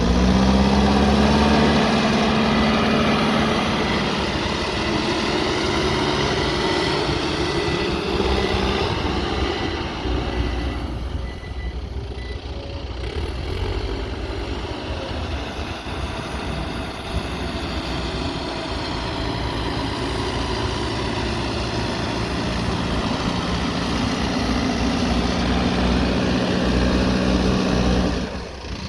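Diesel engine of a Mahindra backhoe loader running under working load. The engine eases off briefly partway through, then picks up again.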